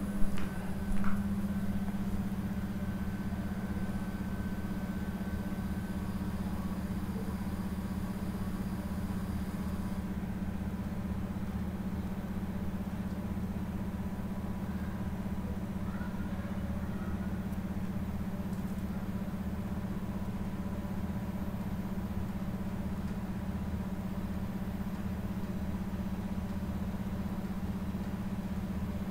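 Steady low machine hum, unchanging throughout, with a couple of short knocks about a second in.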